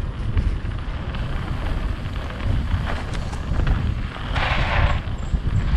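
Wind buffeting the microphone of a camera on a mountain bike riding down a dirt and gravel trail, with tyre rumble and a few short rattles from the bike. A brief rush of noise comes a little past four seconds in.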